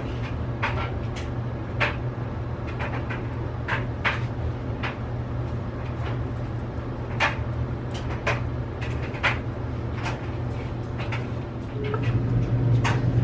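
Scattered light knocks and clicks as a wooden cut-out sign is held, shifted and pencil-marked against a wooden shelf unit, over a steady low hum.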